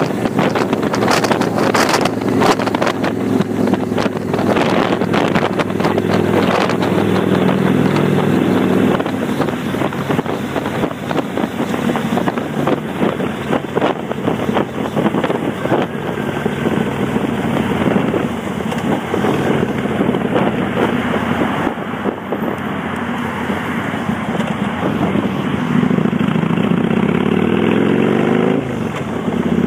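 Kawasaki Vulcan 800's V-twin running under way through Vance & Hines Straight Shots exhausts with the baffle plugs removed, with wind buffeting the microphone, heaviest in the first few seconds. Near the end the revs climb and then drop sharply.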